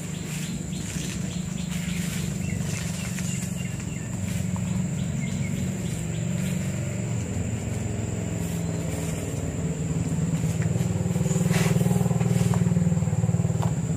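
An engine running steadily nearby, a low drone that grows louder near the end.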